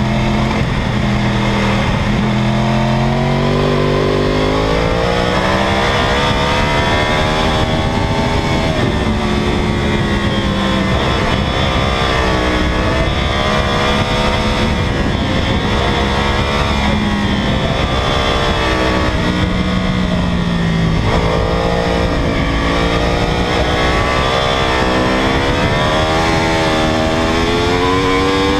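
2009 Yamaha R1 race bike's crossplane inline-four engine running hard, its pitch rising and falling again and again as the rider works the throttle and gears, over a steady rush of wind.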